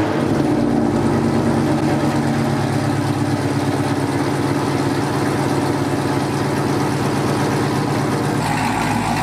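Chevrolet Camaro SS 1LE's 6.2 L LT1 V8 idling steadily just after a cold start, breathing through long-tube headers, a catless mid-pipe, an X-pipe and AWE Track axle-back exhaust.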